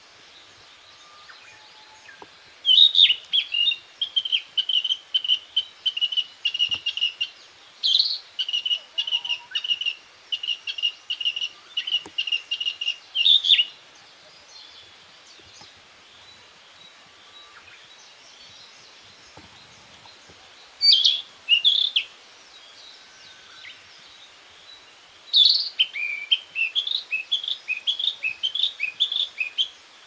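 Male Narcissus flycatcher singing: a long run of quickly repeated clear whistled notes, then a short phrase about 21 seconds in, and another series of notes near the end.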